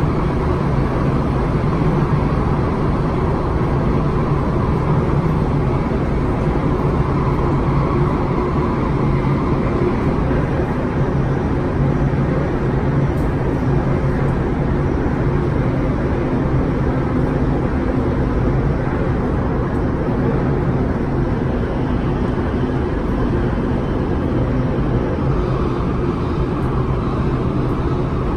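Steady running noise inside the carriage of an MTR West Rail Line electric train under way, with a constant low hum under it.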